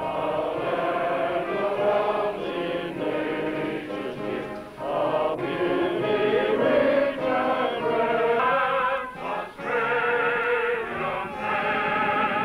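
Many voices singing together with a brass band, in phrases with brief pauses between them.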